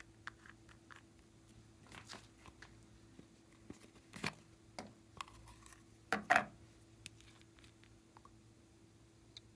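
Small plastic toy makeup containers being handled and opened, with slime being squeezed: scattered clicks and taps, and a few louder sounds about two, four and six seconds in.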